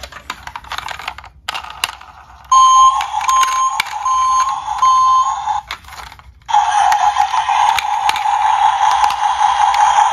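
Electronic sound effects from a battery-powered toy police truck's small speaker: a run of four even, high beeps, then a steady buzzing electronic sound, with plastic handling clicks at the start.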